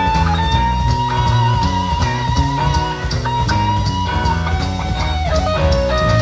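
Instrumental passage from a 1975 reel-to-reel tape recording of a prog-rock band playing guitars, bass and drums. A lead line holds long high notes with slight bends over steady drum and cymbal strokes, and steps down lower near the end.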